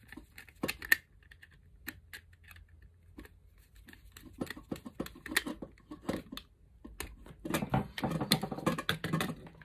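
Small clicks and taps of hands working a plastic light switch: a screwdriver fastening a cable in a terminal screw and wires being handled. A denser run of plastic clicking and rattling comes near the end as the switch and its cables are handled.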